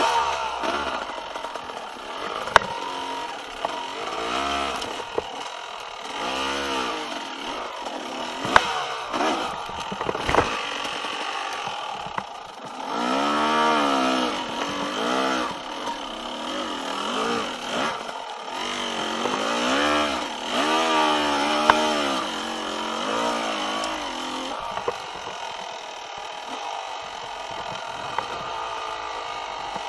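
Yamaha YZ250X's single-cylinder two-stroke engine revving up and down over and over, its pitch rising and falling in repeated swells, with a few sharp knocks in between.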